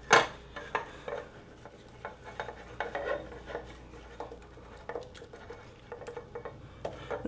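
A stick of butter rubbed around inside the cups of a metal muffin tin by a gloved hand, greasing it: soft scraping with scattered light clicks of the pan, and a sharper knock right at the start.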